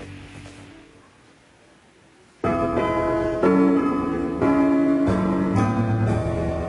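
Piano music starts abruptly about two and a half seconds in, a run of notes and chords from the recorded track for a dance routine, after a brief lull of low room sound.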